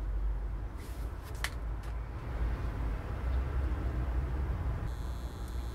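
Low, steady background rumble with a faint click or two about a second and a half in.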